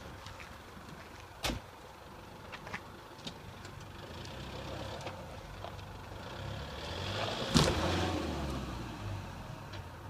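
Toyota Land Cruiser 90's engine revving up under load as it pulls on a tow strap to drag out an old tree stump, with one sharp loud crack at the height of the pull, about three-quarters of the way through. A single door thud comes about a second and a half in.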